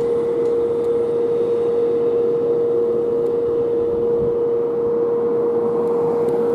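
A fire truck's warning siren holds one steady, unbroken tone, with no rise or fall in pitch. Under it runs the engine and road noise of a 2021 Pierce Arrow XT tractor-drawn aerial ladder truck driving away on an emergency run.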